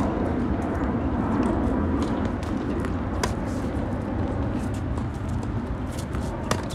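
Tennis rackets striking the ball during a rally on a hard court: a sharp pop at the serve, another about three seconds in, and a third near the end. A steady low rumble runs underneath.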